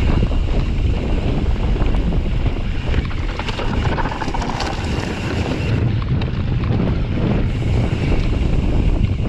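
Wind rushing over a GoPro Hero 7's microphone as a mountain bike descends a dirt singletrack, a steady loud low rumble mixed with tyre noise on the dirt and a few small rattles and clicks from the bike.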